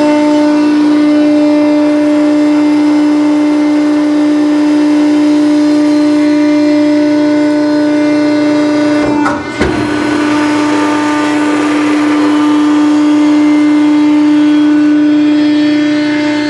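The hydraulic power pack of a Load King 7240 vertical baler, driven by a 15 horsepower 480 volt three-phase electric motor, running under load through a baling cycle with a loud steady whine. About halfway through it dips for a moment, with a sharp knock.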